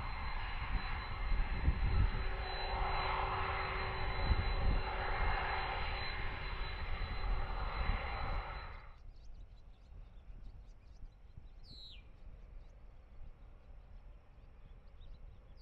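Jet airliner engines at climb power as it departs after takeoff: a steady deep rumble with a high whine. It cuts off abruptly about two-thirds of the way through, leaving quiet outdoor background with a short falling chirp.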